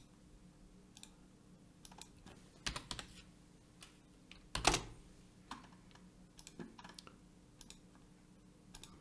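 Faint, irregular computer keyboard keystrokes as a short user name and password are typed in, with one louder key tap about halfway through.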